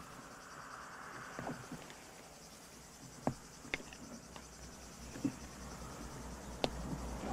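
Faint background of insects chirring, probably crickets, with scattered short clicks and knocks, about six of them, spaced irregularly.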